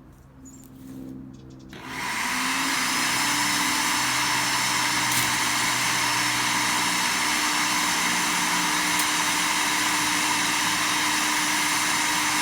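Sun Joe CJ603E 15-amp electric wood chipper switched on, its motor spinning up over about a second to a loud, steady whir and then running evenly.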